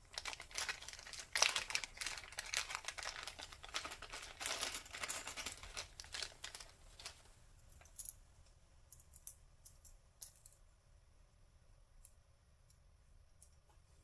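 Small plastic bag crinkling and rustling as it is opened and handled for about seven seconds, then a few scattered light clicks as the metal lobster clasps inside are tipped out and moved about in the hand.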